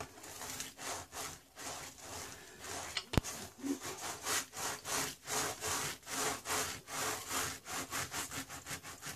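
Hand roller rolled back and forth over a diamond painting canvas, pressing it onto foam board glued with contact cement. It makes a repeated scraping rub, about two to three strokes a second, with one sharp click about three seconds in.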